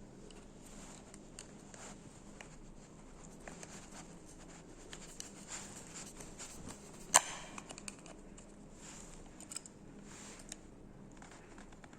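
Small clicks, taps and scratches of small parts being handled, with one sharp knock about seven seconds in.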